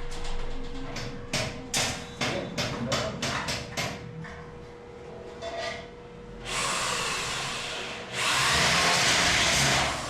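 A quick series of sharp clicks, then a power tool running on the metal ceiling framing in two stretches, the second louder, cutting off near the end.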